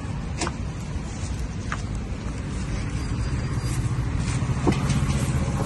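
Low, steady rumble of road traffic, a motor vehicle growing louder in the second half as it passes, with a few light clicks over it.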